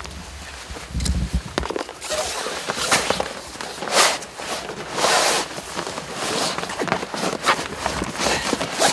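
Rustling, scraping and brushing of the Savage Gear Highrider inflatable kayak's floor section and hull as the floor is handled and pushed down into the boat, in a string of uneven bursts; the loudest come about four and five seconds in.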